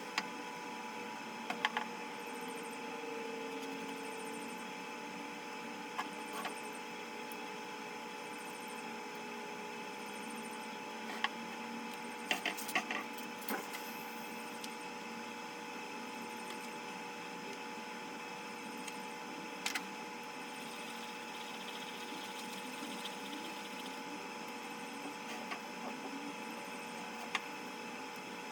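A steady hum with a few scattered light clicks and taps, the busiest cluster about halfway through.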